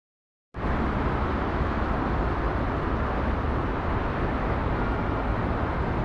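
Steady engine and road noise of a bus in motion, cutting in suddenly after about half a second of silence.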